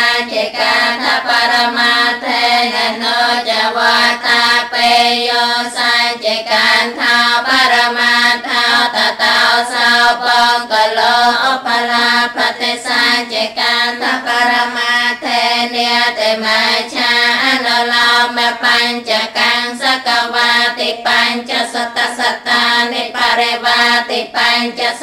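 A woman's voice chanting Pali scripture in the Cambodian Buddhist style, a continuous sung recitation with a regular rhythm and no pauses. It is a Khmer Buddhist nun (doun chi) reciting the text.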